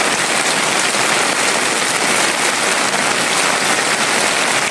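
Heavy rain falling steadily, a loud, even hiss.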